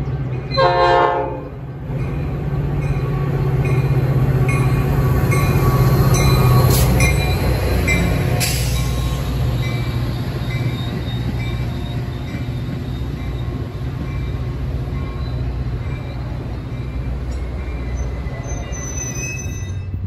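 Metra commuter train's horn sounds one short blast about half a second in, then the train runs past with a steady heavy rumble and a regular light clicking of wheels on the rails.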